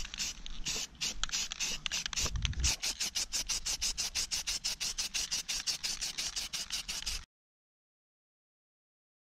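Aerosol spray paint can hissing in rapid, even pulses as a light tack coat is misted onto the parts. The sound cuts off to silence about two seconds before the end.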